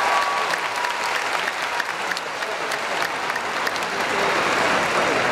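A crowd applauding after a large choir's song, the last held chord fading out in the first half-second.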